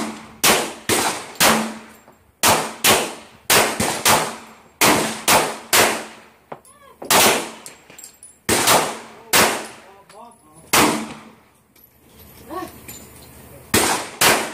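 Semi-automatic pistol, a Rock Island Armory Tactical 2011, fired in quick strings of two to four shots with short pauses, nearly twenty shots in all, each with a brief ringing echo.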